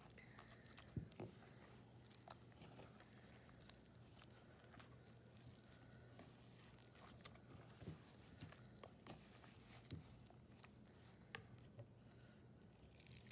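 Faint, scattered squelches and clicks of fingers mixing cornstarch and water into oobleck in a bowl, over near silence with a low steady hum.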